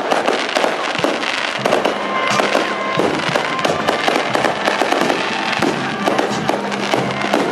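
Aerial fireworks display: shells bursting one after another in a dense barrage of bangs and crackles.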